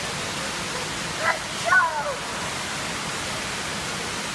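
Indoor fountain jets splashing in a steady rush of water. A young child makes a few short, high-pitched vocal sounds about a second and a half in.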